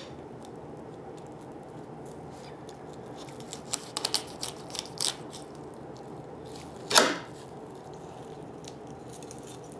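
Fillet knife cutting a walleye fillet free on a plastic cutting board: scattered small crunches and clicks, and one louder scrape about seven seconds in.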